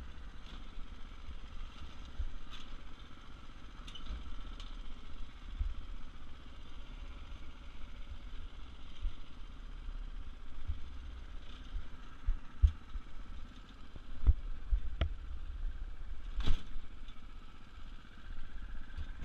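An off-road go-kart's small engine runs as the kart drives over rough ground, under a steady low rumble. Several sharp knocks from the kart come in the second half, the loudest about two-thirds of the way through.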